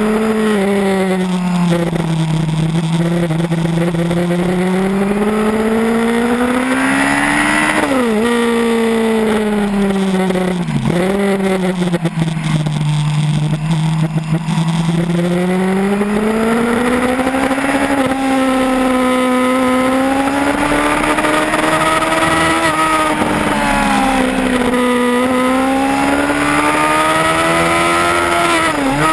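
Yamaha R1 inline-four sportbike engine under way at speed, its note climbing and falling with the throttle, with sharp drops in pitch about eight and eleven seconds in and again near the end. A steady wind rush runs underneath.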